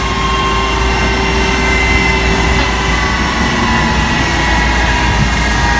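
Steady jet turbine whine at an airliner's parking stand: several high whining tones held over a continuous deep rumble.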